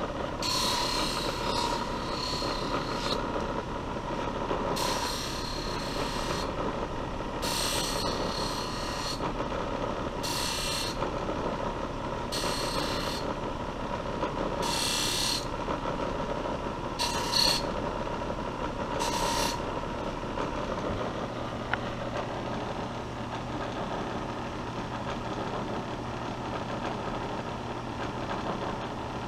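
High-speed bench buffer motor running steadily while a carbon steel knife blade is pressed against the spinning wheel charged with coarse compound, giving about eight short hissing passes over the first twenty seconds; this is the rust being buffed off the blade. After that only the buffer motor runs.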